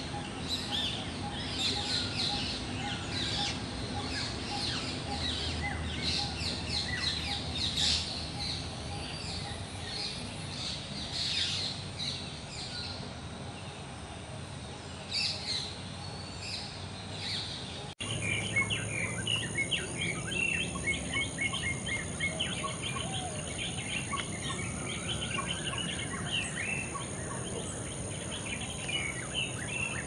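Many birds chirping and calling together in short, quick phrases. About halfway through, the recording changes abruptly: a steady high-pitched hiss appears under denser, faster chirping.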